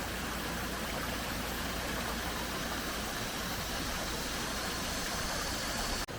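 Mountain valley stream running over rocks, a steady even rush of water, with a momentary dropout near the end.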